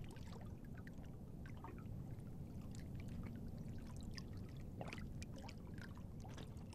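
Faint water sounds: scattered small drips and light trickling over a steady low background hum.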